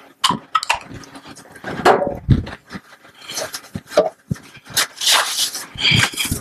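Cleaning at a lab counter and sink: a spray bottle of cleaner hissing in a few short bursts among clicks and clatter of bottles and items being handled and set down.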